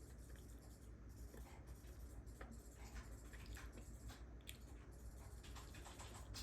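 Faint chewing at a meal, with small scattered clicks over a low steady room hum; very quiet throughout.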